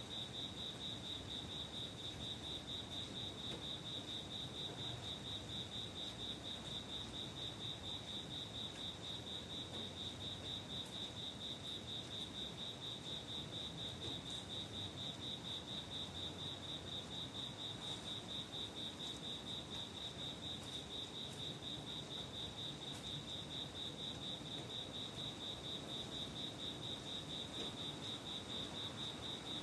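A cricket chirping steadily outside: one high, evenly pulsing trill that keeps the same rhythm throughout, over a faint low background hum.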